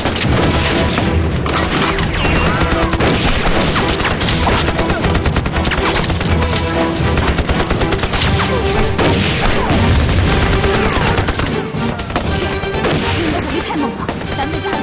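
Dense battle gunfire, rifles and machine guns firing rapidly and continuously, over a dramatic music score.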